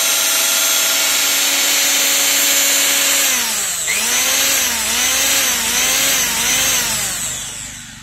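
Mixer grinder's universal motor with a newly fitted armature and carbon brushes, running free at high speed with a steady whine and, just before, judged to run quietly without sparking. About three seconds in its pitch sags, then wavers up and down about twice a second, and it winds down over the last second.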